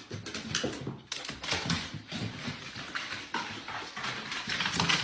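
A dog's paws moving on a hard surface, its claws clicking and scuffing in an irregular patter.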